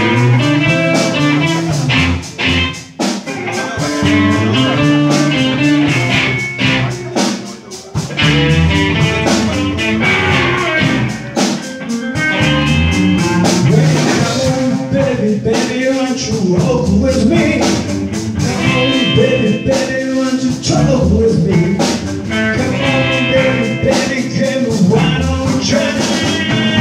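Live band playing amplified music: two electric guitars, an electric bass and a Yamaha drum kit, with steady drum hits throughout.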